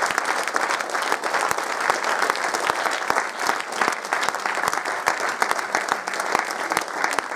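Many people applauding together, the cast on stage clapping with the audience: a dense, steady clapping that holds throughout.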